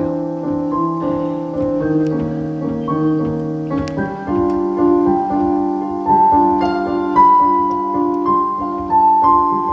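Piano music: a slow melody of single held notes over sustained lower chords.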